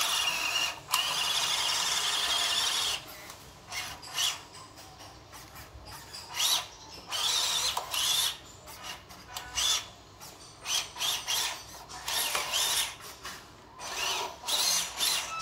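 A WPL B-1 RC military truck's small electric motor and gearbox whining in bursts as the throttle is worked, the pitch rising and falling, loudest for the first few seconds. The tyres scrabble in loose dirt and gravel.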